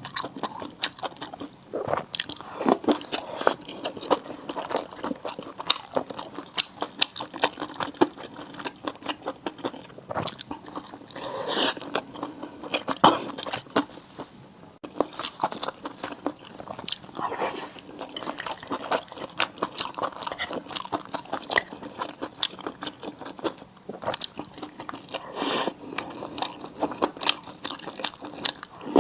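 Close-miked eating of seafood: chewing and biting, with a steady stream of sharp crunchy clicks several times a second.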